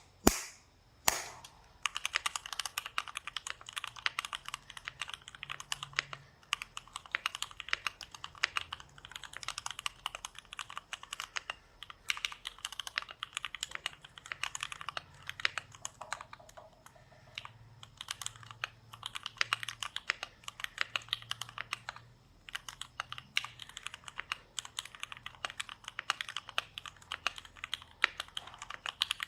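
Keychron Q1 aluminium-cased mechanical keyboard being typed on quickly and continuously, a dense run of key clacks with a few short pauses.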